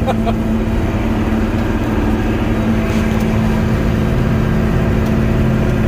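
Combine harvester running steadily while harvesting canola: a constant engine and machinery drone with a steady low hum.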